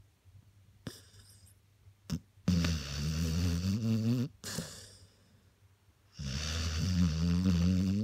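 A sleeping spaniel snoring: two long, loud, pitched snores, one starting about two and a half seconds in and the other about six seconds in, with a softer breath and a short pause between them. A couple of brief snuffles come before the first snore.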